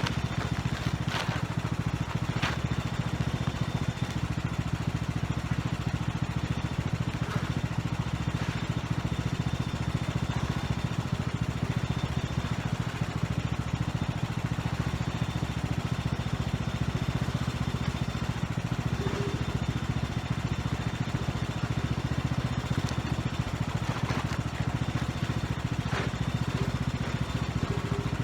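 Riding lawn mower engine left running steadily at idle, kept on to charge its weak battery.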